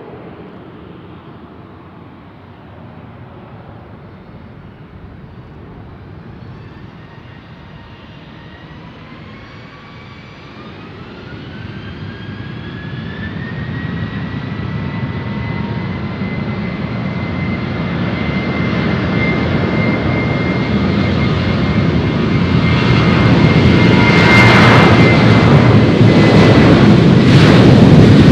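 Southwest Airlines Boeing 737's jet engines spooling up for a rolling take-off: a whine rises in pitch about eight seconds in and then holds steady, while the engine roar grows steadily louder as the jet accelerates down the runway, loudest near the end.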